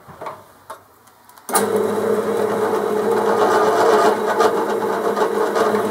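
Drill press motor starts suddenly about a second and a half in and runs with a steady hum while the drill bit spots a mark on a steel block, then cuts off sharply at the end. A few faint knocks come before it starts.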